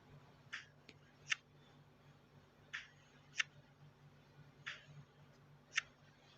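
A series of six short, sharp clicks or taps, spaced irregularly about a second apart, over a quiet room background.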